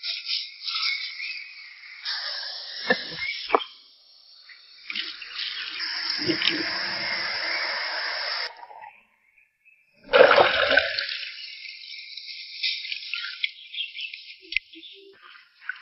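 Water pouring and splashing, heard in several short pieces that start and stop abruptly, with a couple of sharp knocks about three seconds in.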